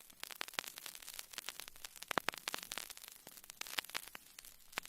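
Faint vinyl record surface noise: irregular crackles and pops from a stylus riding the groove, over a light hiss.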